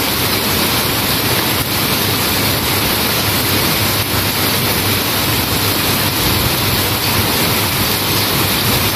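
Heavy tropical downpour falling steadily on a concrete street, a dense, even rush of rain with no break.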